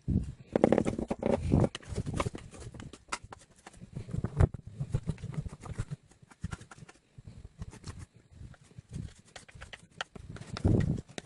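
Soft, sticky material being pressed and worked by hand, giving an irregular run of small clicks, pops and squelches, busiest in the first couple of seconds.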